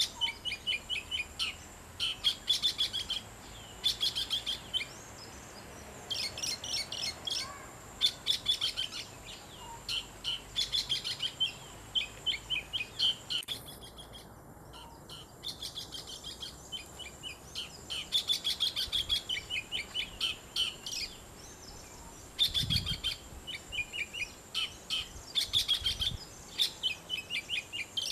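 Male oriental magpie-robin singing: phrase after phrase of quick, varied notes with short pauses between them, and a longer pause about halfway through.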